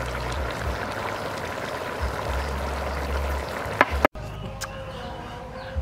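Curry sauce with snails bubbling and spitting in a wok at a simmer. It stops abruptly about four seconds in, just after a sharp click.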